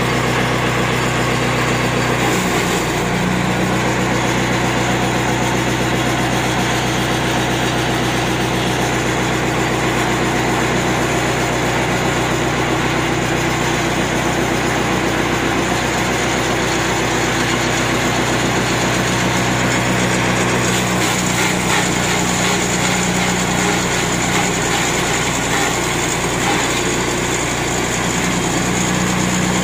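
Small petrol engine running steadily under load, driving a feed chopper (chaff cutter) that chops green fodder fed into it. The sound turns rougher and noisier for several seconds about two-thirds of the way through.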